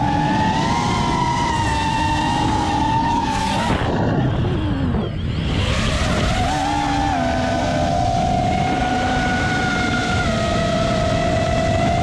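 Brushless motors and propellers of an x210 FPV quadcopter, heard from its onboard camera, whining over a rush of wind. The pitch glides up and down with the throttle. About four seconds in, the throttle is cut and the whine falls away, then it comes back up about a second later.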